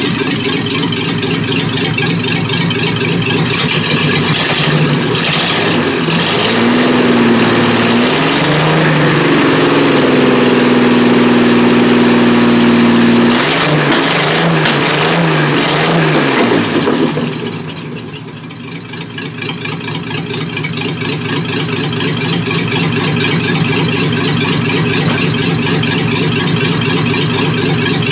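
Carbureted engine swapped into a Mercedes 126, running with no muffler fitted. About a quarter of the way in the revs climb, hold high for a few seconds and then fall back. It settles to a steady idle for the last third.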